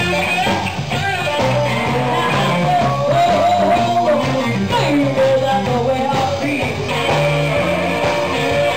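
Live blues band playing: a woman singing lead over electric guitar, electric bass and drums.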